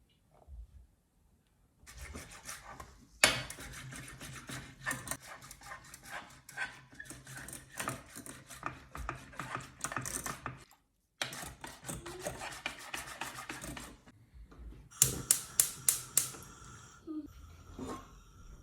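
Rapid, continuous rubbing and scraping strokes from a kitchen utensil working against a bowl or board, breaking off briefly about halfway through, followed by a handful of sharp taps.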